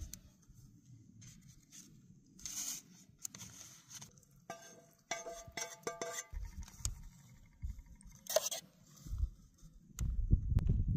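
Cookware handling: a spatula scraping and clinking against a frying pan, with a few ringing metallic clinks around the middle and scattered clicks and rustles from handling the tortillas. Wind gusts buffet the microphone near the end.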